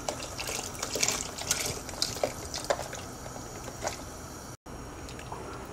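Chicken stock pouring from a carton into a large pot of thick gumbo base, with irregular splashes that are busiest in the first three seconds and then thin out.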